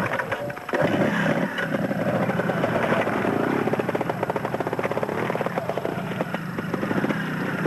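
Vintage trial motorcycle's engine running under throttle, getting louder about a second in as the bike is turned and ridden up over rocks.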